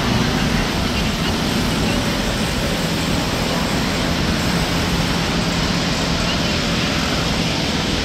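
A steady motor drone with low humming tones under a wide, even rushing noise, unchanging throughout.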